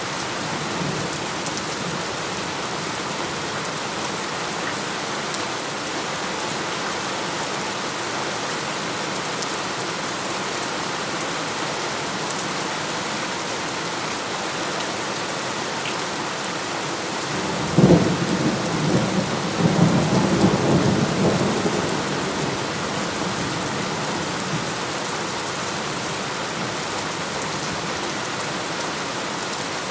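Steady heavy rain. About two-thirds of the way through, a sudden crack of thunder rolls into rumbling that dies away over about four seconds.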